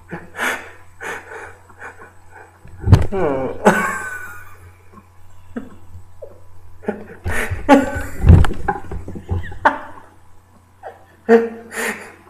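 A man laughing in bursts, the longest about three seconds in and again around eight seconds in, over a steady low hum.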